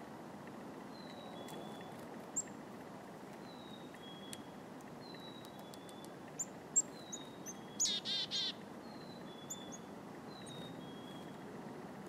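Black-capped chickadees calling: scattered thin, high chips and short notes, then a louder run of three buzzy notes about eight seconds in, over a steady low outdoor hiss.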